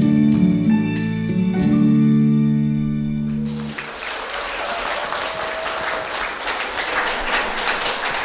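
A children's choir song with guitar accompaniment ends on a long held final chord. A little under four seconds in, the music stops and the audience applauds.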